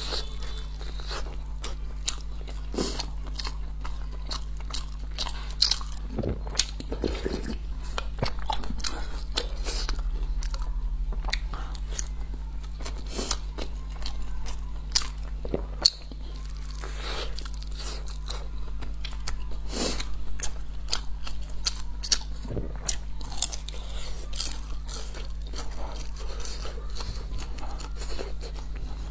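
Close-miked eating: repeated bites and chewing with many short, crisp crunching clicks, over a steady low electrical hum.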